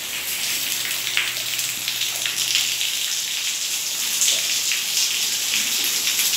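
Heavy rain falling on a tiled patio, a steady dense hiss of drops.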